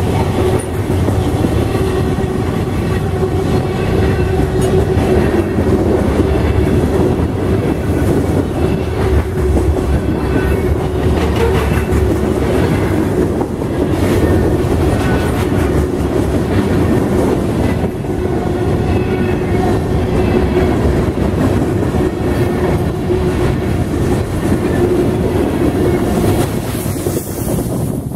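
Freight cars, boxcars and then covered hoppers, rolling past at close range: steel wheels clattering over the rail joints with a steady rumble and a steady tone beneath it. The sound eases off near the end as the last car passes.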